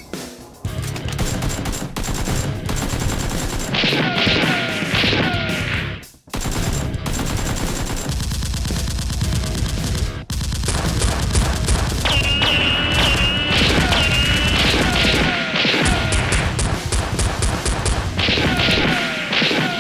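Rapid, sustained gunfire with a short break about six seconds in, over heavy guitar music.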